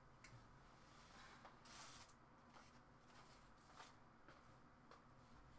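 Near silence, with faint rustles and a few light clicks as a long fabric dress is handled and held up; the loudest rustle comes about two seconds in.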